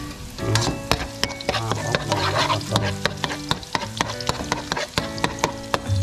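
Minced garlic sizzling in hot oil in a wok, with a spatula scraping and knocking against the pan many times as it is stirred.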